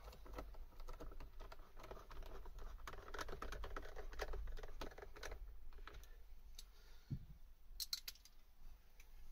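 A hand screwdriver turning screws into a car's plastic interior door panel at the handle, giving a quick run of small clicks and scrapes. The clicks thin out after about five seconds, and there is a single low knock a little later.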